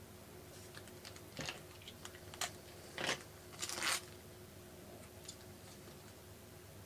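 Trading-card pack wrapper being torn open and crinkled, in a few short crackling bursts between about one and a half and four seconds in.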